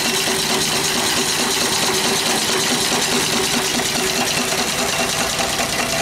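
Small single-cylinder live steam engine running steadily on a coal-fired vertical boiler, its exhaust going up the boiler stack: a fast, even chuffing with a steady hiss.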